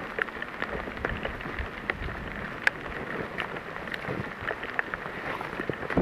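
Footsteps crunching and rustling through dry forest leaf litter: a steady crackling hiss with many small sharp crackles.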